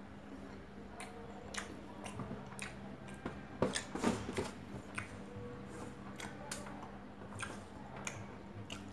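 Close-up hand-eating sounds: fingers scraping and scooping rice across a stainless steel tray, with wet chewing and lip smacking. The scraping and clicking is thickest about four seconds in.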